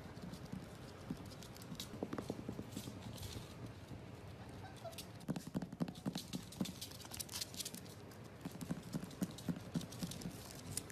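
Corgi puppies' paws and claws tapping on a hardwood floor as they scamper about: quick, irregular clicks, busiest in the middle and again near the end.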